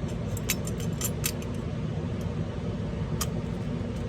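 Small clicks and taps of a paintball marker's frame and parts being worked into place by hand, several in the first second and a half and one more near the end, over a steady low hum.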